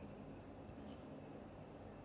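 Quiet room tone: a faint steady hum and hiss, with one small click about a second in.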